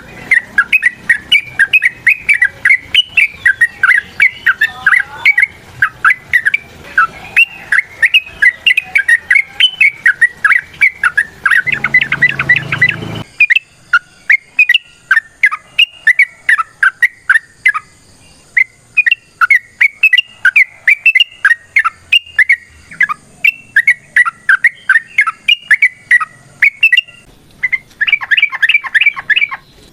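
Yellow-vented bulbul (trucuk) singing a long, unbroken run of short, quick notes. The notes come faster in two stretches, about twelve seconds in and near the end. About thirteen seconds in the background changes abruptly, like a splice in the recording.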